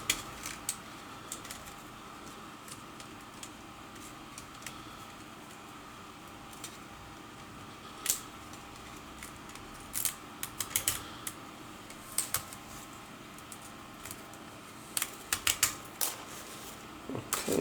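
Scattered sharp clicks and light taps of a tool and small connectors on an open Asus K551L laptop's mainboard as the Wi-Fi antenna leads are unclipped. The clicks come singly at first, then in quick runs around ten and fifteen seconds in, over a faint steady hum.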